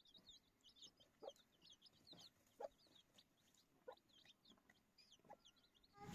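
Chickens clucking softly: four short low clucks spaced about a second and a half apart, over a scatter of faint high chirps.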